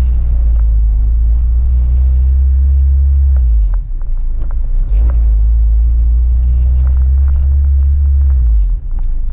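Car engine, an Acura RSX's Honda K20 four-cylinder, running under load with a deep rumble. The sound rises, drops briefly about four seconds in, rises again and drops once more near the end.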